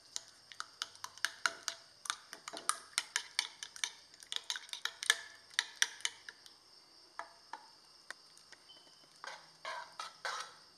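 Steel spoon beating eggs in a glass bowl: quick clinks against the glass, about three or four a second, thinning out after about six seconds. Near the end, bread cubes are pushed off a plate into the bowl with a few soft scraping sounds. A steady high-pitched hum runs underneath.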